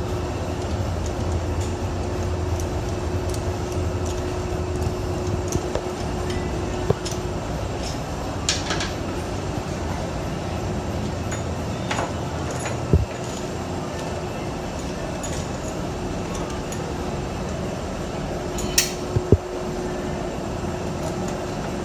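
Steady mechanical hum of a motorcycle workshop, with a few sharp metallic clinks of tools on the bike's parts.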